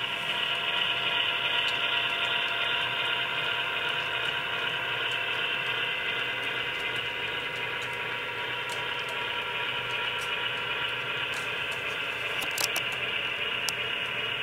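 Model railroad train running past: a steady whir from the locomotive's electric motor and the wheels rolling on the track, with a few faint clicks near the end.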